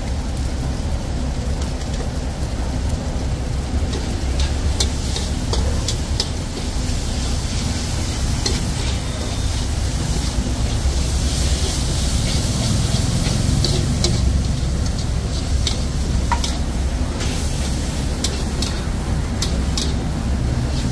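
Pad thai stir-frying in a steel wok: a steady frying sizzle with repeated sharp clinks and scrapes of the metal ladle and spatula against the wok, over a steady low rumble.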